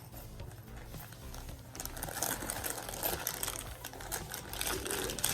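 Handling noise from unpacking a microphone from its case: a quick run of small clicks and rustles, busier from about two seconds in.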